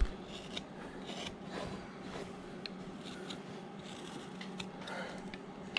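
Carving knife paring a hard wood carving blank: a series of short, crisp snicks and scrapes as the blade slices off shavings.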